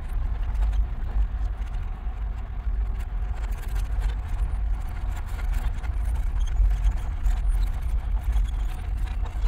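Car being driven, heard from inside the cabin: a steady low engine and road rumble from the tyres on an unpaved road.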